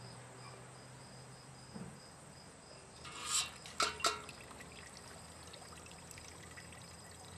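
Fresh pressed cider trickling faintly from a homemade cider press into a plastic cup. A few seconds in comes a brief louder burst of noise, then two sharp clicks. Crickets chirp steadily throughout.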